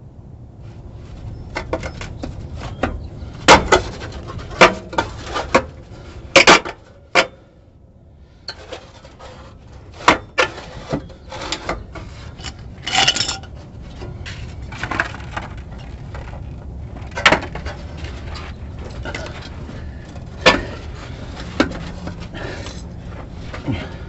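Irregular knocks and clatters with some scraping and rubbing, the loudest a cluster of sharp knocks about four to seven seconds in, over a steady low rumble.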